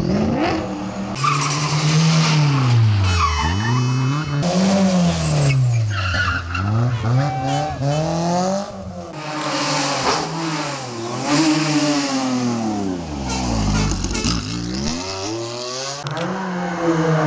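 Historic rally car engines revving hard through a tight hairpin, the engine note climbing and dropping again and again as the cars brake, shift and accelerate out of the bend, with tyres skidding on the tarmac.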